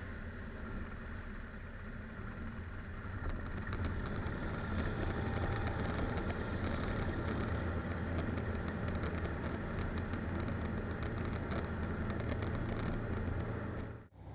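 Land Africa STOL ultralight's engine and propeller running, with wind rush over the wing-mounted camera. The sound grows louder about three to four seconds in as the aircraft climbs away from the strip, then drops out briefly near the end.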